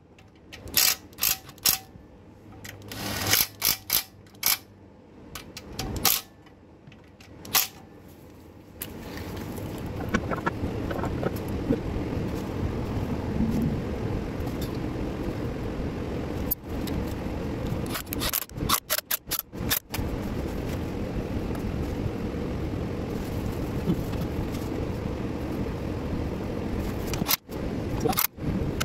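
Cordless ratchet running oil pan bolts in with short bursts and clicks over the first several seconds. Then a steady rushing noise sets in and carries on, broken by a few brief dropouts.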